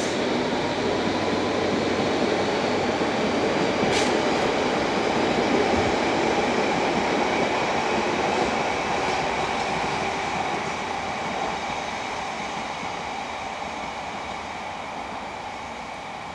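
London Underground S8 Stock train pulling away, its wheels running on the rails as a steady noise with two sharp clicks, near the start and about four seconds in. From about ten seconds in the sound fades steadily as the train draws away.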